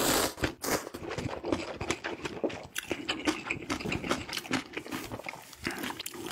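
A person slurps a mouthful of instant ramen noodles with one loud slurp at the start, then chews with many quick, irregular wet mouth clicks.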